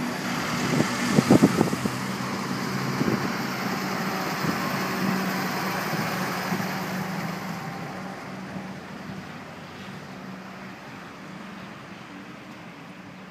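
Diesel engines of large farm tractors driving past in a line, a John Deere passing close by. The steady engine hum is loudest in the first half and fades away over the last few seconds, with a few sharp knocks about a second in.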